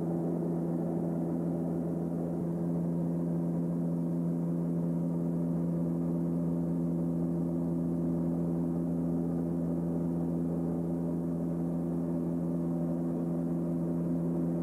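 Beech King Air 200's twin turboprop engines and propellers droning steadily in flight, heard inside the cabin as an even hum with a few fixed tones.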